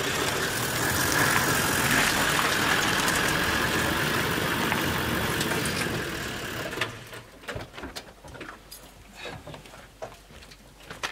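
A ute's engine and tyre noise runs steadily for about the first seven seconds, then cuts off. Scattered quieter clicks and knocks follow as the driver's door opens and he climbs out.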